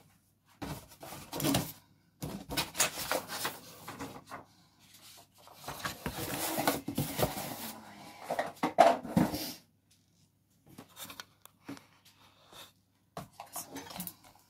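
Paper and plastic packaging rustling and crinkling in the hands as items come out of a cardboard parcel box, lasting most of the first ten seconds, followed by a few light taps and clicks of small items handled on the table.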